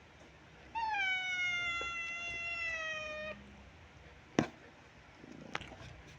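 A cat meowing: one long drawn-out meow of about two and a half seconds, its pitch slowly falling. Two sharp clicks follow later.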